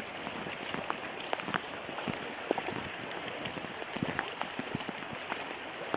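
Heavy rain falling steadily, with many sharp drip and drop ticks striking nearby surfaces.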